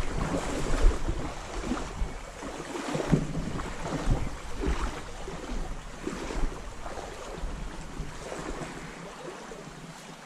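Water sloshing and splashing in irregular surges as someone wades through a shallow stream, with wind rumbling on the microphone; the splashing eases off near the end.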